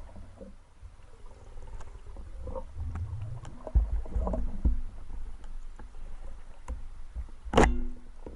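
Muffled water sloshing with scattered knocks, and one sharp, loud knock near the end.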